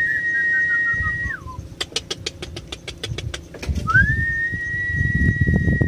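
A person whistling two long, level notes, each sliding up at the start and dropping away at the end, with a fainter falling whistle under the first. Between the notes comes about a second of rapid clicking, roughly ten clicks a second.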